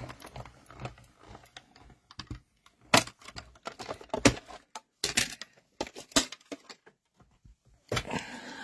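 A hand-cranked die-cutting machine and its plastic cutting plates: irregular clicks and clacks as a die sandwich is cranked through for a second pass and the plates are pulled out and set down on the mat. The sharpest clacks come about three and four seconds in.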